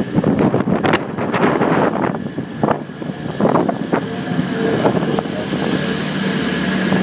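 Hull Trains Class 180 diesel multiple unit pulling away under power as its coaches pass close by, its engines running with a steady whine that comes in about halfway through. Irregular gusts of wind buffet the microphone, mostly in the first half.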